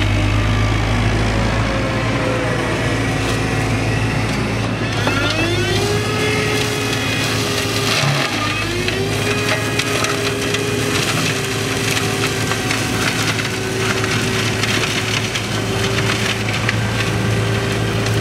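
ROLMEX flail mulching head on a JCB tracked excavator, spinning and shredding grass and brush over the steady hum of the excavator's engine and hydraulics, with a crackle of cut material. The rotor's whine sinks and climbs back up twice, about five and eight seconds in, as it takes load in the growth.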